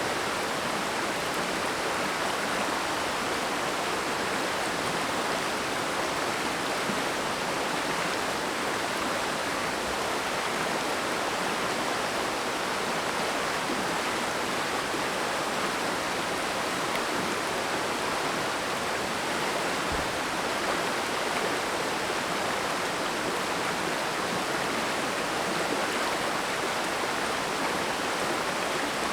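A mountain stream flowing: a steady, even rush of water with no breaks.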